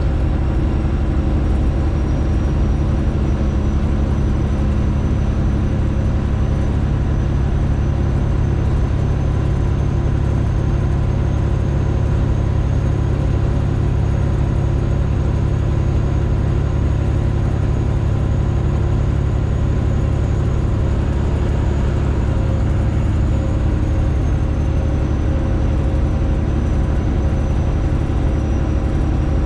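Straight-piped Detroit Diesel engine of a Freightliner Classic XL truck pulling steadily under way, a loud, even drone. A faint high whine rises slowly and drops back in the last few seconds.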